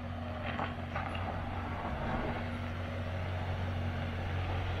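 Volkswagen Touareg's engine running steadily at low speed as it crawls over a rocky off-road obstacle, a continuous low hum.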